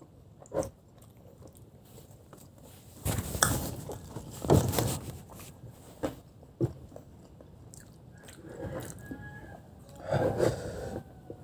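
Close-miked eating: a person biting and chewing food, with loud wet mouth sounds in irregular clusters.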